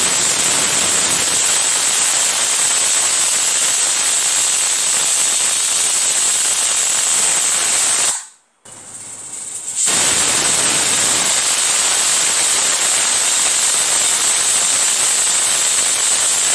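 Aluminium pressure cooker whistling on high flame: the weight valve lets off steam in a loud, steady, shrill hiss that cuts off suddenly after about eight seconds. A second whistle starts up about two seconds later and runs on. The whistles mark the cooker at full pressure, each one counted as a cooking stage.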